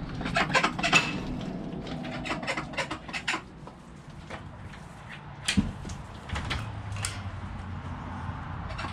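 Irregular clicks and knocks from someone moving through a wooden duck pen with a gravel floor. They are densest about a second in, with another sharp knock about halfway through. A low steady hum comes in after about six and a half seconds.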